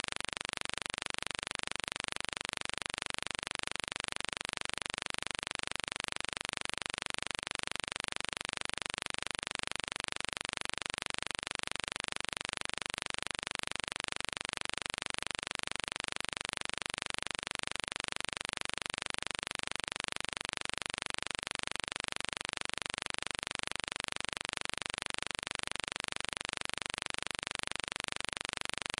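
Steady, unchanging hiss with nothing else heard.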